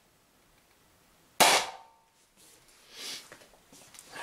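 A single shot from an Umarex HDP50 CO2 pistol about a second and a half in, merged with a metallic clang as the steel ball strikes and dents a tin can, ringing briefly.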